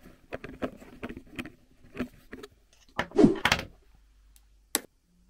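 Handling noise as a small plastic tripod is unpacked: a run of light clicks and packaging rustles. About three seconds in comes a louder knock, the tripod being set down on a wooden tabletop, and there is one sharp click near the end.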